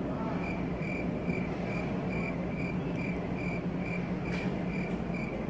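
Cricket chirping, a short chirp about three times a second, over a steady low hum.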